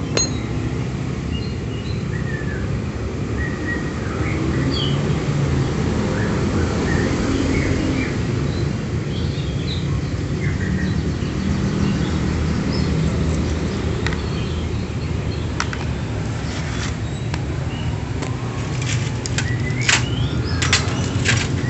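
Steady low mechanical rumble, with scattered bird chirps throughout. In the last several seconds come a run of sharp metallic clinks as a motorcycle cylinder head and its small parts are handled on a metal tray.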